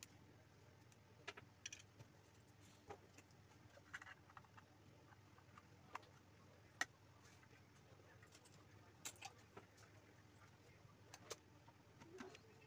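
Faint scattered clicks and light rustling of hands handling fan cables and snapping their small plastic connectors together, with one sharper click about seven seconds in.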